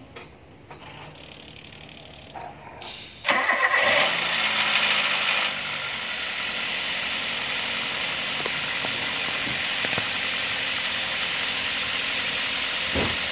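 Toyota Avanza / Daihatsu Xenia DOHC 16-valve EFI engine starting about three seconds in. It catches at once, runs at a raised idle for a couple of seconds, then settles to a steady idle. The engine has just been refilled with fresh 5W-30 oil.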